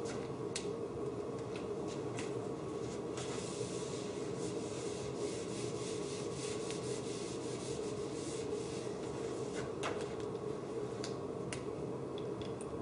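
A whiteboard eraser wiping across the board in repeated rubbing strokes, with a few sharp clicks, over a steady room hum.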